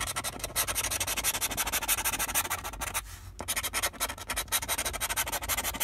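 Scratch-off lottery ticket being scratched, with rapid back-and-forth scraping strokes of about five a second and a short pause about three seconds in.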